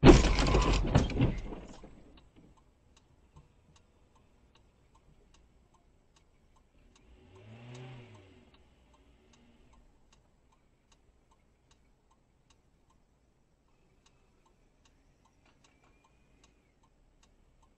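Car collision: a loud crunching impact that dies away over about two seconds. It is followed by faint steady ticking about twice a second, with a short rising-and-falling hum near the middle.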